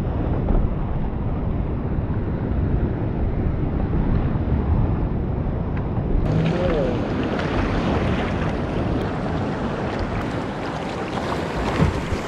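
Sea waves breaking and washing against rocks close by, with wind rumbling on the microphone. About six seconds in, the sound turns brighter and hissier as water splashes right at the microphone.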